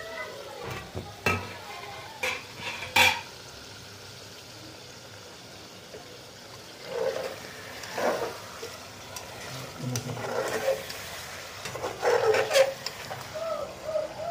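A metal spoon stirring and scraping chicken curry in an aluminium pressure-cooker pot while the curry fries with a low sizzle. Several sharp knocks of the spoon on the pot come in the first three seconds, the loudest about three seconds in, then longer scraping strokes follow.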